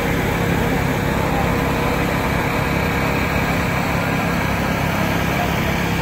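Vehicle engine running steadily, a continuous drone with a low rumble and no change in speed.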